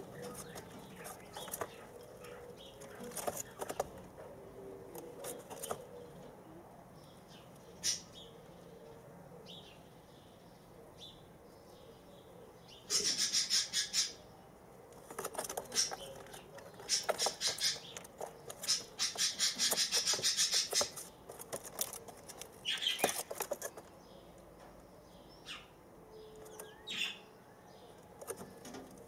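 Young white doves in a wire cage, with several bursts of rapid wing fluttering and feather rustling: the longest runs for a few seconds near the middle, and a shorter one comes a couple of seconds later.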